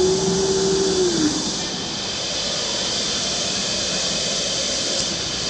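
Steady hum and hiss of running machinery in an industrial robot cell. A motor whine rises in pitch, holds, and drops away a little over a second in.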